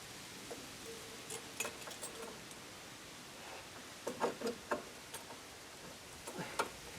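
Scattered light clicks and taps, a few in quick clusters, over faint background hiss.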